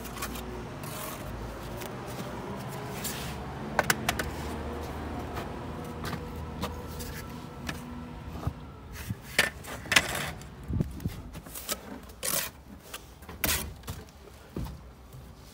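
A bricklayer's steel trowel scraping mortar on concrete blocks and knocking against them, a string of sharp taps and scrapes that comes mostly in the second half. A low steady hum runs under the first half and fades about halfway.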